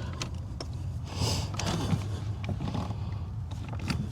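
Light clicks and a short scraping rustle about a second in, from hands handling a car door panel and its cables and connectors, over a steady low hum.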